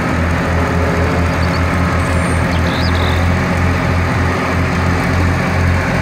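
Heavy diesel truck engine running hard, a loud low drone that pulses unevenly, as an aerial lift truck stuck deep in mud strains to pull free.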